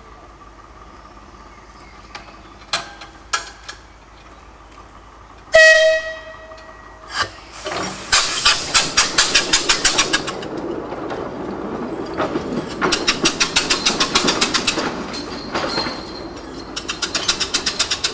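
Compressed-air locomotive: a short whistle blast, then it moves off with rapid, even puffs of spent air from its exhaust, about five or six a second, coming in several runs as the regulator is opened and closed.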